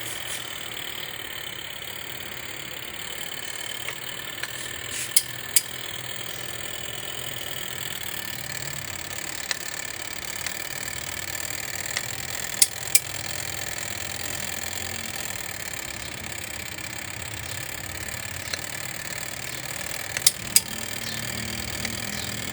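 Twin tub washing machine's motor running steadily, with a pair of sharp clicks three times, about every seven and a half seconds.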